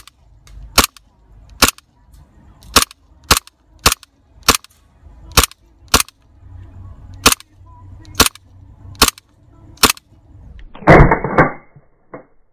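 Stark Arms Glock G19-style gas blowback airsoft pistol firing single shots: thirteen sharp cracks at uneven intervals of about half a second to a second, then a brief loud burst of noise about eleven seconds in, and a small click.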